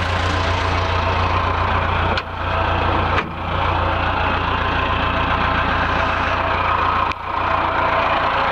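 Diesel engine of a Caterpillar 416 backhoe loader idling steadily, with a few brief dips in level.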